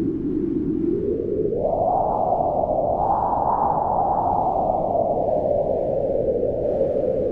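Wind howling steadily, a moaning band of sound whose pitch climbs sharply about a second and a half in, peaks near the middle, then slowly sinks.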